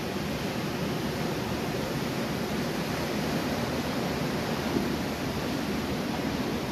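Ocean surf heard from high above the beach: a steady wash of small breaking waves, with no single crash standing out.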